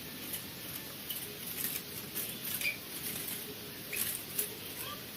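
Small birds giving a few brief faint chirps among light, scratchy clicking and rustling.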